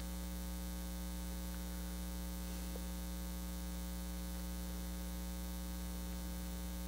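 Steady electrical mains hum: a low, unchanging buzz with a stack of overtones and no other sound.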